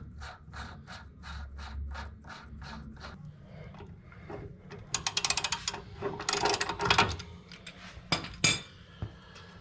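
Hand socket ratchet clicking as bolts are turned: a slow run of even clicks, about four a second, then faster bursts of rapid clicking about halfway through and again near the end.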